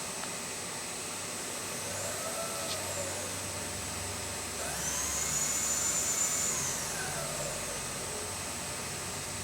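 Milling machine's longitudinal power feed motor running as it drives the table, whining and rising then falling in pitch: briefly about two seconds in, then longer and louder through the middle, over a steady high whine.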